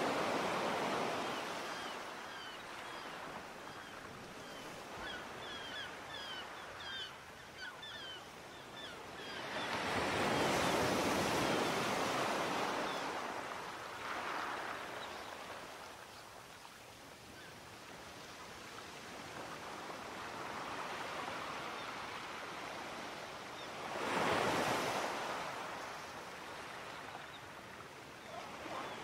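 Sea waves breaking and washing back, three larger waves swelling up near the start, about ten seconds in and about twenty-four seconds in, with a steady wash between them.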